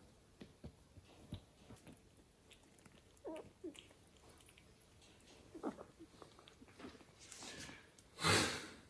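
Kittens biting and pawing at a hanging felt gift bag: scattered small taps and rustles, a couple of short soft mews, and one loud brief rustle near the end.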